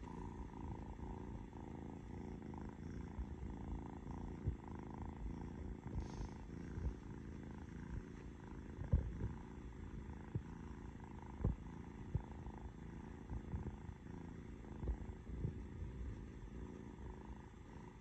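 Orange tabby kitten purring steadily close to the microphone, with a few soft knocks along the way.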